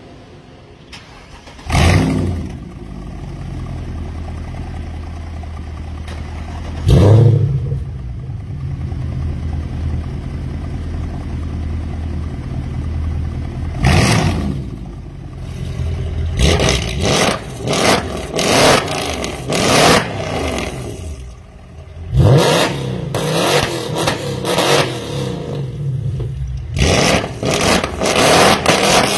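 Two Mercedes C63 AMG (W204) 6.2-litre V8s on aftermarket exhausts, starting one after the other about two and about seven seconds in, each with a loud flare before settling into a steady idle. From about fourteen seconds on they are revved in repeated sharp blips that rise and fall, with a short lull a little past the twenty-second mark.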